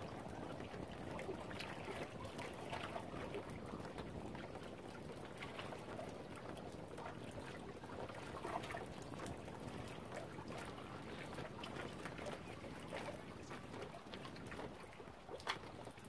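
Lake water lapping gently at the shore: a steady wash with many small splashes and trickles, and one sharper splash near the end.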